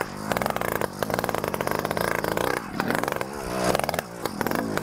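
100cc petrol bike engine on a motorised mountain bike, running with no exhaust fitted. It revs up and down as the throttle is opened and eased, with several short dips and a rising rev about three and a half seconds in.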